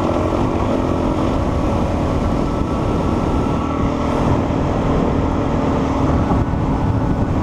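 Motorbike engine running steadily at an even pitch under a dense, noisy rush of sound.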